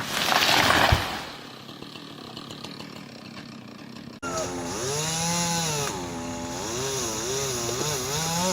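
A loud rush of noise lasting about a second, then a quieter stretch. After an abrupt cut, a chainsaw engine runs under load, its pitch rising and falling as the throttle and the cut vary.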